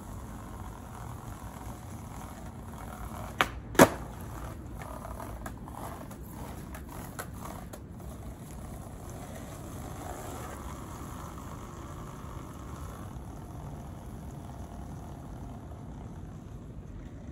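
Skateboard on a paved path: two sharp clacks close together about three and a half seconds in, then a run of lighter clicks, over a steady low background noise.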